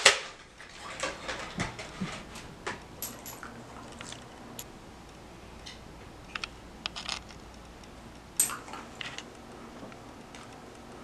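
Faint scattered clicks and light taps in a quiet room, with a few close together about six to seven seconds in and a sharper clink a little after eight seconds.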